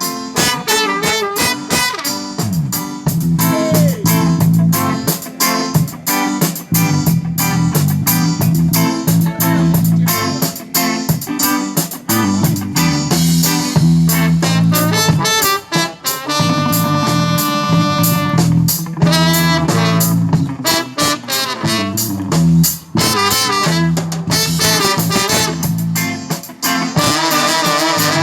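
Live band music with a steady bass line and beat; a chord is held for a few seconds past the middle.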